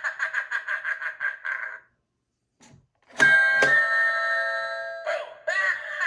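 Animatronic skull doorbell prop playing its electronic ding-dong chime through its small speaker, the tones pulsing rapidly. The chime dies away about two seconds in. After a short silence and a faint click, it starts again loudly with two sharp clicks about three seconds in.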